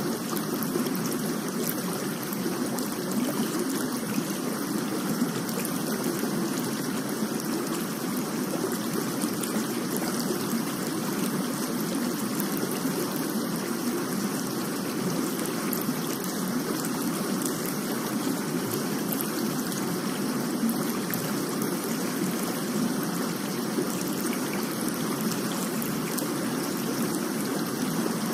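Steady rain, an even, unbroken wash of falling water with no single drops standing out.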